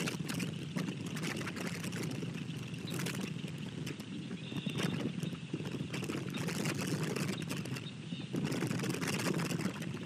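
Red-headed woodpecker pecking at a hanging seed cylinder: a run of irregular knocks and taps over a steady low rumble.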